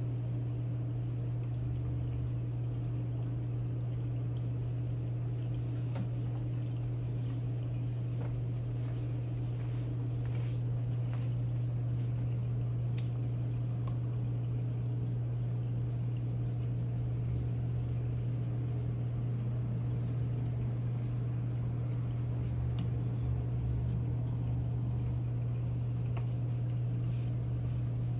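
Reef aquarium running: a steady low pump hum with water pouring and trickling, and a few faint ticks.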